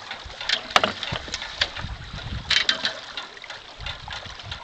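Water splashing with a series of sharp knocks and clicks and a few low thumps as a hooked fish is drawn in close and handled at the surface.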